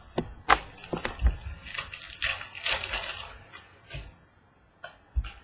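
Trading cards and their foil pack wrappers being handled: a run of crinkling and rustling with sharp clicks, busiest in the middle, then two light taps near the end.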